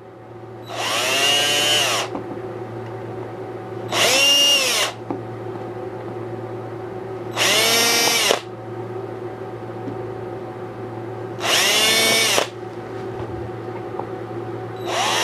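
DeWalt cordless drill with a 1/16-inch bit drilling shallow pilot holes in bamboo. It runs in short bursts of about a second, each spinning up and winding down: four of them, with a fifth starting near the end.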